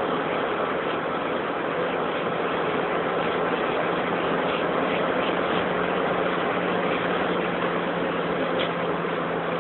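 Interior sound of a supercharged BMW 318ti Compact driven at speed: a steady engine drone under a constant rush of wind and road noise, recorded through a phone microphone.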